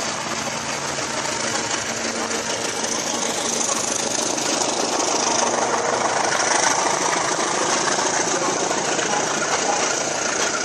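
A CC 201 diesel-electric locomotive passing close with its engine running, followed by a long rake of economy-class passenger coaches rolling by, with steady loud noise of wheels on rails. The engine's note fades about halfway through as the coaches go by.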